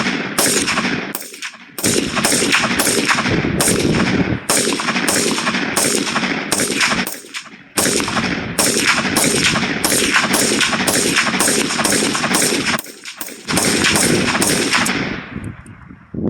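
AR-15 rifle fired rapidly in semi-automatic, about two shots a second with a few short pauses, each shot followed by a ringing echo. The firing stops near the end, with the magazine emptied.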